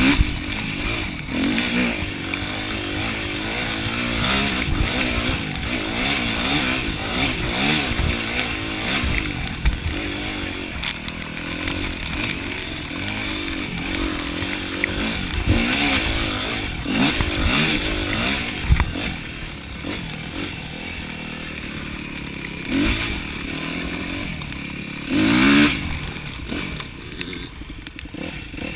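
Yamaha YZ250F dirt bike's single-cylinder four-stroke engine being ridden hard, its revs rising and falling over and over through the gears. One sharp, loud rev comes near the end.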